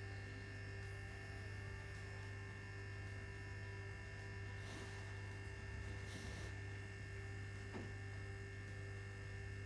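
Faint, steady electrical mains hum, with a few thin steady whining tones above it.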